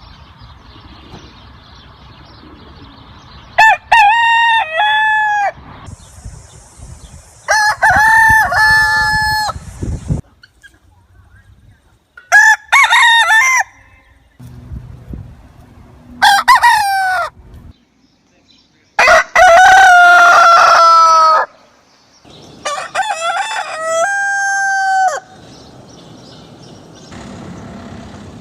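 Roosters crowing: six separate crows a few seconds apart, each about one to three seconds long, with the background noise changing abruptly between them.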